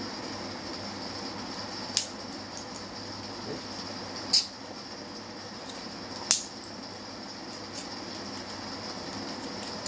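Tablets being pushed out of a foil blister pack: three sharp crackling pops about two seconds apart, over a steady background hiss.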